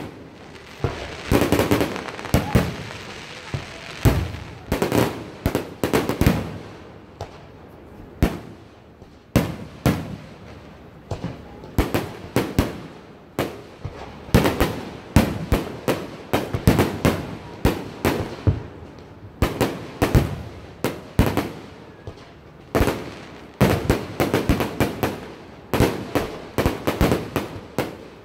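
Aerial fireworks shells bursting overhead in quick succession: a steady series of sharp bangs and crackles, denser towards the end.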